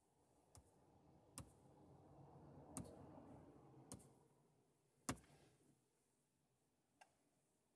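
About six sharp taps of a fingertip on a car head unit's touchscreen, spaced unevenly a second or so apart.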